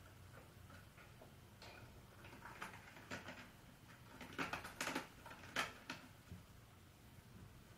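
Light clicks and taps, bunched between about two and a half and six seconds in, from kittens pawing at and moving against a wire pet cage and its plastic tray.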